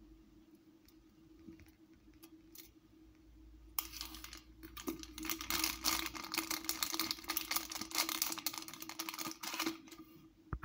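Clear plastic packaging crinkling and crackling in the hand as foam-wound sabiki rigs are slid back into the packet. The crackling starts abruptly about four seconds in, runs densely for about six seconds and stops near the end, over a faint steady hum.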